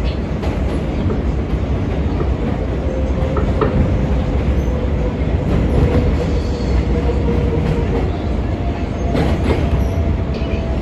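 R143 subway train in motion, heard from aboard: a steady loud rumble of wheels on rail, with a thin steady whine through the middle that steps up in pitch about eight seconds in, and a few clicks over rail joints near the end.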